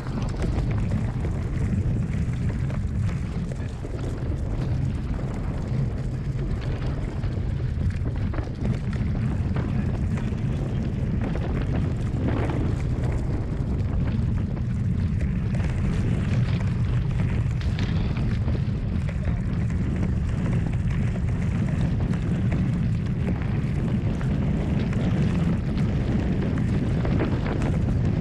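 Strong wind buffeting the camera microphone in a steady low rumble, with the rush and hiss of water from a Hobie 16 catamaran sailing fast.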